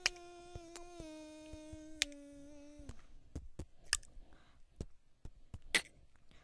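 A person humming long held notes that step down in pitch, stopping about three seconds in, with sharp clicks scattered throughout.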